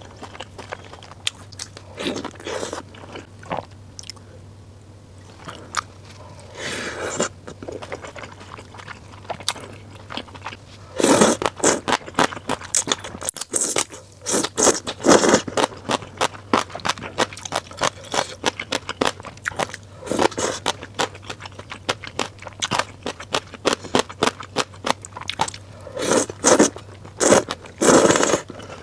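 Close-up mouth sounds of a person eating: chewing a soft kimchi steamed bun at first, then, from about ten seconds in, loud repeated slurping of rice noodles in spicy broth, coming in quick clusters.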